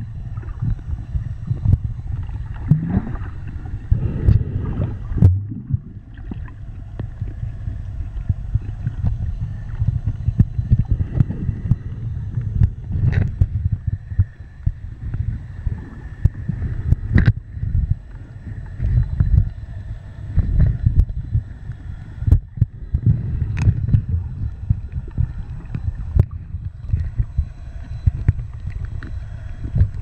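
Underwater sound heard through a camera's waterproof housing: a muffled, fluctuating low rumble of moving water, broken by a few sharp clicks.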